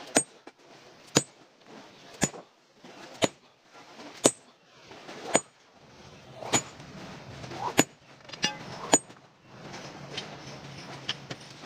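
Sledgehammer striking a row of steel plug-and-feather wedges driven into a boulder to split it. Nine sharp, ringing metallic clangs, about one a second, then they stop near the end.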